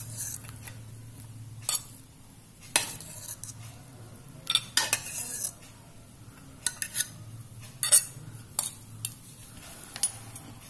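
Cooked instant noodles being transferred onto a ceramic plate, with scattered sharp clinks and taps of kitchen utensils against the plate, some in quick pairs, over a faint low hum.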